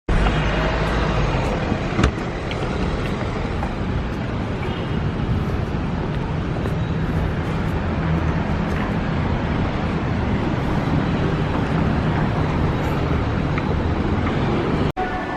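Steady traffic and street noise, an even wash of road rumble, with a single short click about two seconds in.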